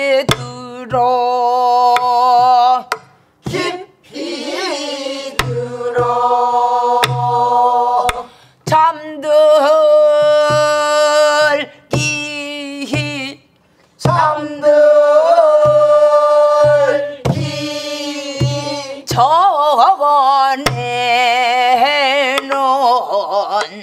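A woman sings a Namdo folk song in long, held phrases with wide vibrato. She accompanies herself on a buk, a Korean barrel drum: deep drum strokes keep the rhythm, with sharp clicks of the stick on the drum's wooden shell between them.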